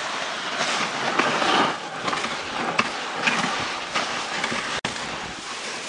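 Dog sled runners hissing and scraping over packed snow as the team of sled dogs pulls the sled along, with scattered crunches.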